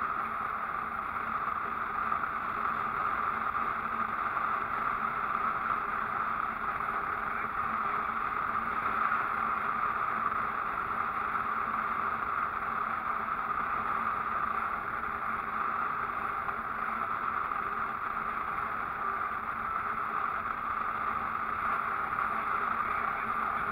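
Steady road noise from a vehicle cruising along a highway: engine, tyres and wind rushing past a mounted camera, holding an even level throughout.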